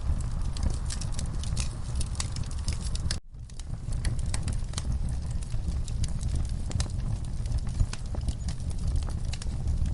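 Log fire burning: a steady low rumble of flames with frequent sharp crackles and pops from the burning wood. The sound drops out for a split second about three seconds in.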